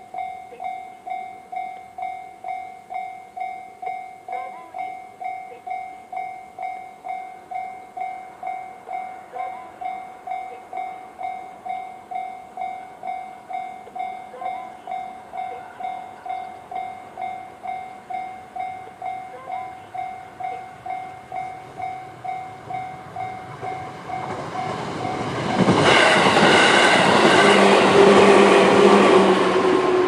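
Japanese level-crossing alarm in the JR standard electronic bell tone, ringing steadily at about two strokes a second. Near the end a JR 211-series electric train passes, its rumble and rail noise rising loud over the bell and falling away as it clears.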